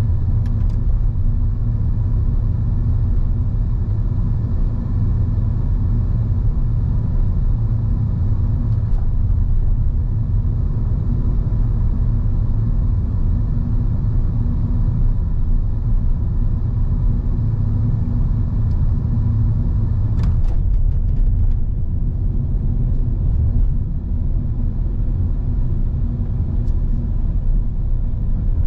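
Steady low rumble of a car being driven, the road and engine noise picked up by a dash cam.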